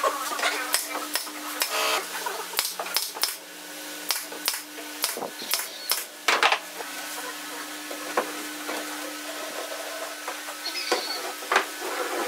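Pneumatic brad nailer firing a rapid series of sharp shots into the wooden chair seat, about a dozen over the first six or seven seconds, followed by a few scattered lighter clicks and knocks. A steady low hum runs underneath.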